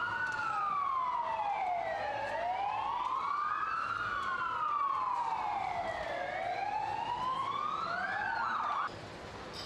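Emergency vehicle siren in a slow wail, rising and falling about every four seconds, cutting off suddenly near the end.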